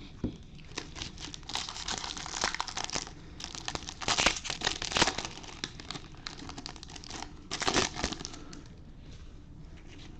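Crinkling and tearing of a baseball card pack's foil wrapper being opened by hand, in several crackly bursts.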